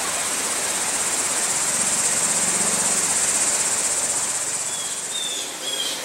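An insect's steady high buzz that swells over the first couple of seconds and fades away about five seconds in, over an even background hiss. A few short high bird chirps come near the end.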